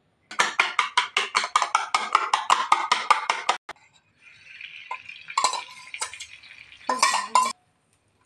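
A spoon beating eggs in a metal bowl: rapid clinking, about six strokes a second, for about three seconds. Then the batter sizzles on a hot oiled tawa, and a spoon scrapes and clinks against the bowl a few times near the end.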